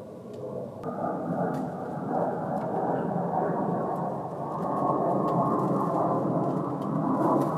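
Airplane flying over: a steady rumble that grows louder about a second in and stays loud.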